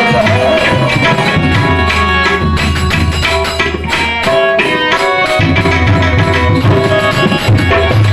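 Instrumental passage of a live Gujarati bhajan: a tabla-style hand drum keeps a beat under held, pitched melody notes. The drum drops out for a moment midway, then comes back.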